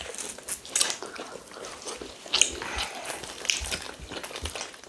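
Close-up eating sounds: chewing and mouth sounds from people eating rice and stew, with scattered short clicks.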